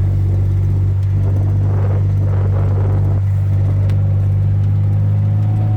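Side-by-side utility vehicle's engine running at a steady pace, a constant low hum.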